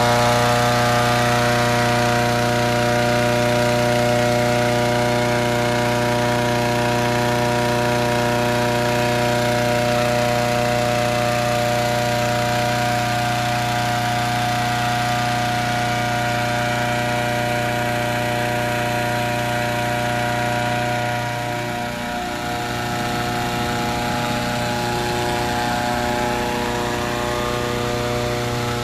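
Petrol-engine balloon inflator fan running steadily at full speed, blowing cold air into a hot-air balloon envelope, with a brief small dip about two-thirds of the way in.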